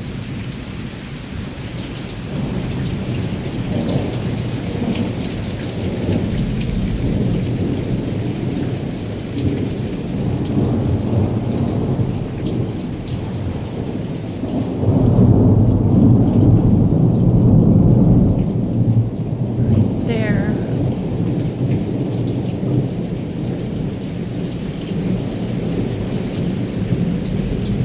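Thunder rumbling through a steady rain. A louder, longer peal swells about fifteen seconds in and lasts a few seconds.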